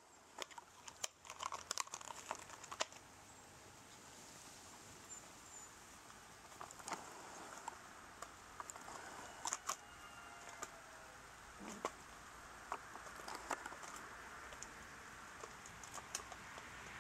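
Light rain pattering: scattered sharp taps, thickest in the first three seconds, over a steady hiss.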